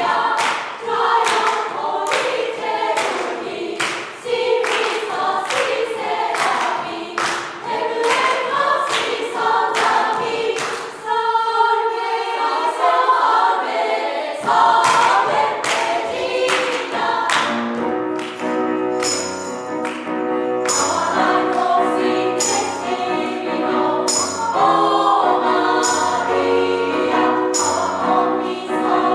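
Choir singing a gospel-style hymn over accompaniment with a steady beat. A little under halfway the sound thins for a few seconds, then a bass line comes in under the voices.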